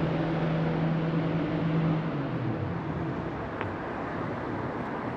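An engine hums steadily, then drops in pitch about two seconds in and fades, over a steady noisy background.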